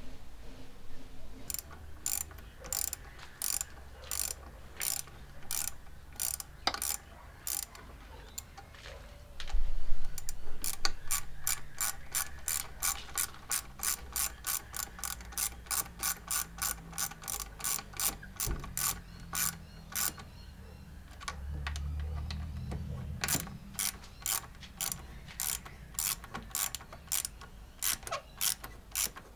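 Hand ratchet clicking in quick, regular runs as the thermostat housing bolts are run down and tightened, with short pauses between runs. One loud knock about a third of the way in.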